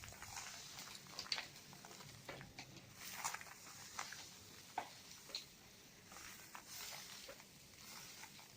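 Dry cement balls and cubes being crumbled: faint, scattered crisp crunches and crackles, a few every second.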